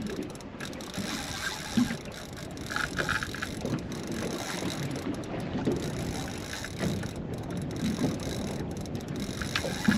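Steady noise of wind and water on a small fishing boat at sea, with a few knocks.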